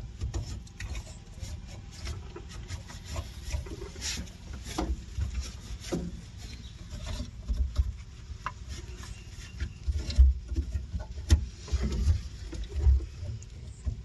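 A cloth rag rubbing and wiping over the plastic relays, fuses and wiring of an excavator's electrical panel, with scattered irregular clicks and knocks over an uneven low rumble.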